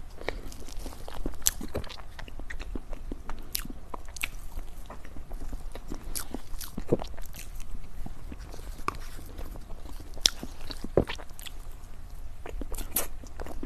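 Close-miked mouth sounds of a person eating dessert: bites and chewing with many irregular sharp, crisp clicks and smacks.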